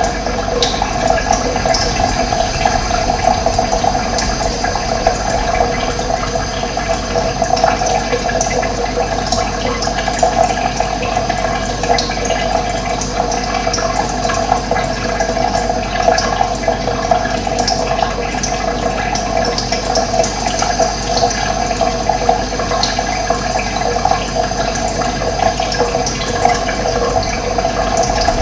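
Running water flowing steadily with an even, continuous rush.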